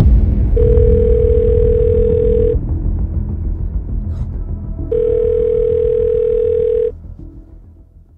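Mobile phone ringback tone: two long beeps of about two seconds each, a couple of seconds apart, as the outgoing call rings unanswered, over a low background rumble.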